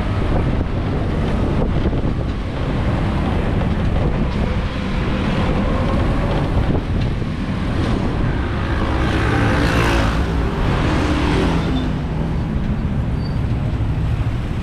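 Road noise from a ride in an open-sided electric passenger vehicle: a steady low rumble of tyres and wind. Another vehicle's engine passes close by about ten seconds in.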